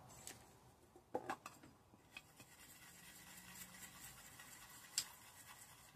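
Near silence: room tone with a few faint light taps and scratches, a small cluster about a second in and one more tap about five seconds in.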